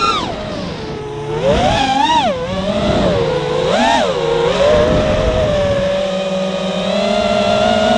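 A camera drone's electric motors and propellers whining close to the camera. The pitch sweeps up and back down with the throttle about two and again about four seconds in, then holds a steady hum.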